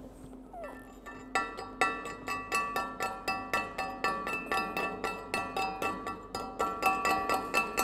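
Chipping hammer striking slag off an overhead stick weld on a 3/8-inch steel test plate, in rapid strikes about four to five a second that start about a second and a half in. Each strike sets the plate ringing with several clear metallic tones.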